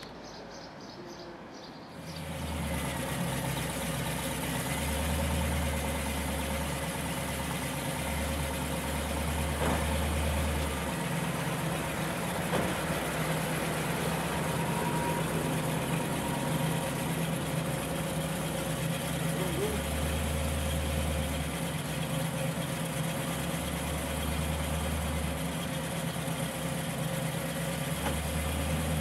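TVR Chimaera 450's V8 idling through its exhaust, a deep rumble that swells and eases every few seconds. It comes in suddenly about two seconds in, after a quieter stretch.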